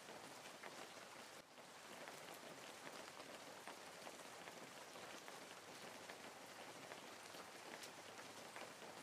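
Faint, steady rain: an even hiss sprinkled with the light ticks of individual drops, dipping briefly about a second and a half in.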